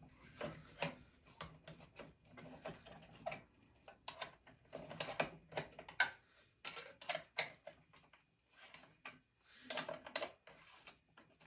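Irregular small metal clicks and clinks of hand work on a chainsaw's muffler assembly: parts being handled and screws turned in.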